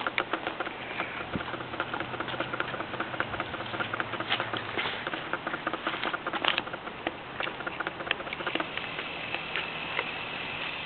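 Small K'nex car driven by a solar-powered K'nex motor, running slowly: a fast, uneven clicking and rattling of plastic gears and wheels.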